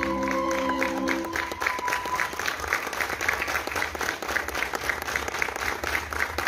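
Audience applauding in a theatre hall, many hands clapping, as the held final notes of the dance music die away in the first second or so.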